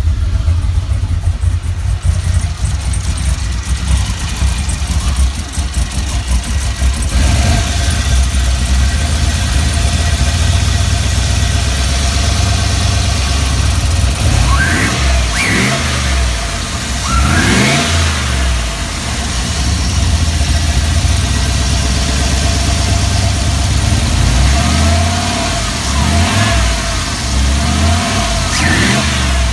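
Turbocharged LS V8 in a GMC Canyon running just after start-up, idling unevenly with a misfire that new spark plugs and plug wires have not cured, which the owner puts down to a coil. It is revved a couple of times, about halfway through and again near the end.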